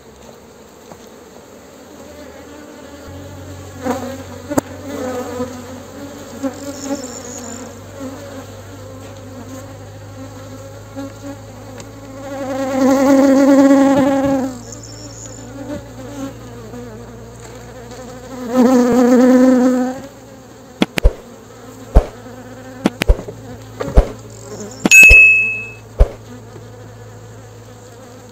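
Honeybees buzzing at an open hive, with a bee flying close past the microphone twice in loud swells. Several sharp knocks come near the end as the wooden hive covers are handled.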